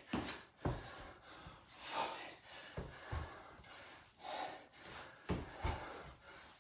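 A man breathing hard with forceful breaths through the mouth and nose while exercising, a surge of breath every second or two. Several dull thuds of trainers landing on a rubber gym floor come among the breaths.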